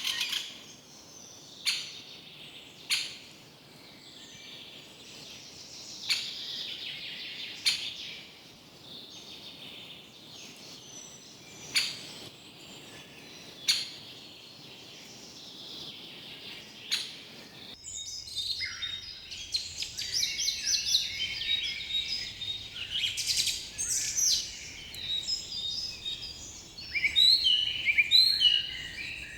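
Forest birds singing and chirping, with sharp short notes every second or two over a steady haze of calls. About 18 seconds in, the sound changes abruptly to denser, busier chirping.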